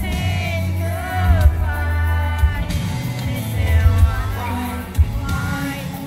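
Live concert music: a male voice singing a slow pop song over a band with keyboards and a heavy bass.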